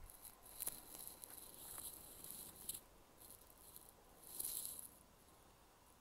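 Faint outdoor ambience of irregular, high-pitched crackling and rustling, swelling briefly about two seconds in and again near four and a half seconds.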